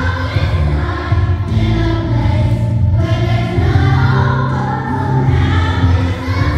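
Children's choir singing together in sustained notes.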